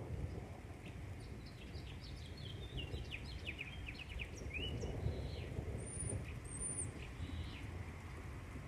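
Low, continuous rumble of distant thunder rolling on without a break, most of it from intracloud lightning. Small birds chirp a quick run of short calls between about two and five seconds in.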